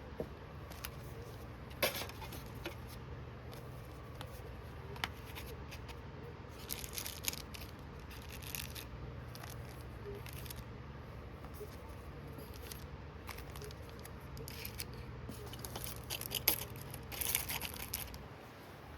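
Packaging being handled and opened: rustling and crinkling of plastic and paper with scattered light clicks and taps, in clusters, over a steady low hum.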